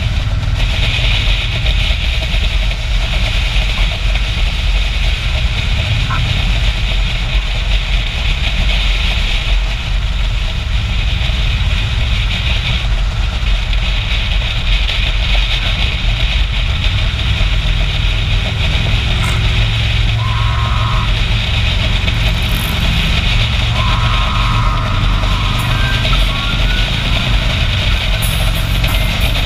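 Motorcycle V-twin engine running steadily at cruising speed, heard from the rider's seat with wind rushing past, echoing inside a road tunnel.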